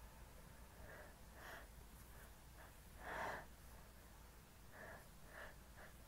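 Faint short sniffs and breaths from a person with a head cold, about six in all, the loudest a little after three seconds in.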